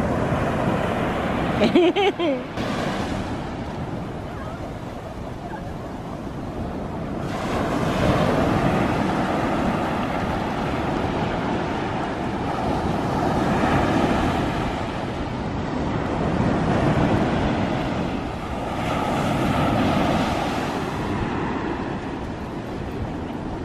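Surf breaking and washing up a sandy beach in slow swells that rise and fall every few seconds, with wind on the microphone. About two seconds in, a brief vocal cry stands out above the surf.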